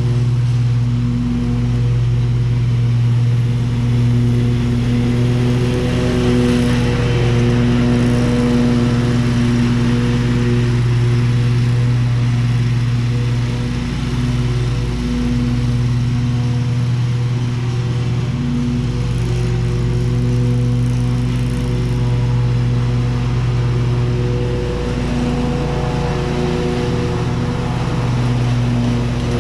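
Zero-turn riding mower's engine running steadily under load while mowing, a constant even drone with small dips in loudness.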